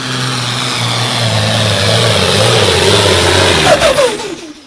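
Pulling tractor's engine running hard under full load, loud with a low wavering note, then a falling whine about four seconds in as it winds down, dying away near the end.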